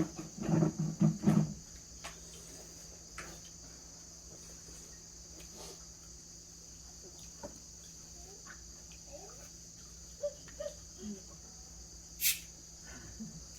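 Crickets chirping in a steady high trill. A brief burst of voices in the first second and a half, and a sharp click about twelve seconds in.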